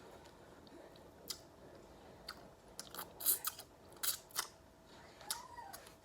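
Close-up eating sounds of crab legs: the brittle shell snapping and crackling as it is broken open, and chewing, as a scattered series of sharp clicks and crunches.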